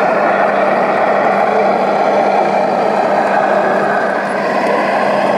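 Radio-controlled scale model Komatsu D65PX crawler dozer driving over a concrete floor, with a steady, even vehicle running sound.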